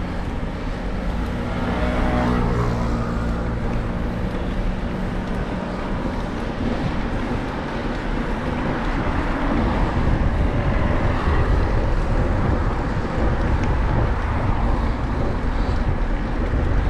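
Wind buffeting the microphone of a handlebar-mounted camera on a moving bicycle, a steady low rumble. A motor vehicle's engine is heard passing about two seconds in.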